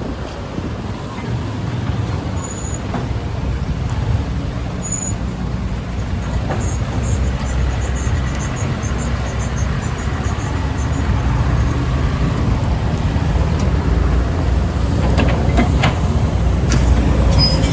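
Motorcycle engine running on the move, with steady road rumble, growing gradually louder.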